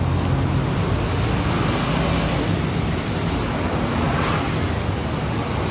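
Steady noise of passing road traffic, with a low engine hum strongest in the first second.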